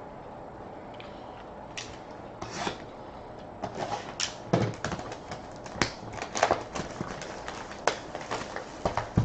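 Hands opening sealed trading card boxes and packs: cardboard and plastic wrapping rustling and crinkling, with scattered sharp clicks, sparse at first and much busier in the second half.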